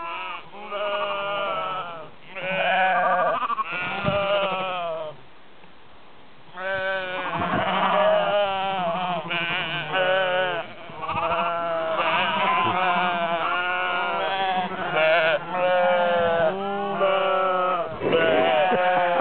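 A flock of horned sheep and their lambs bleating over and over, many high and lower calls overlapping, with a short lull of about a second and a half near the middle.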